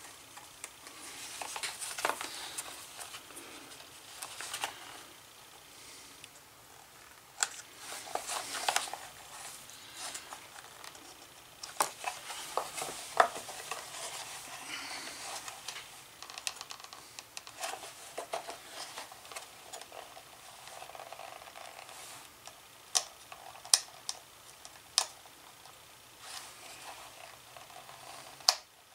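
Thin blade scraping and picking at old stitching in a leather holster, cutting the threads, with leather rustling and scattered sharp ticks.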